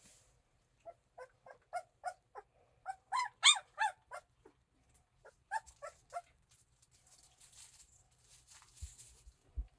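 Tibetan Mastiff puppy giving a quick run of short, high-pitched cries, about three a second, loudest about three and a half seconds in, with a few more cries a couple of seconds later. Faint rustling follows near the end.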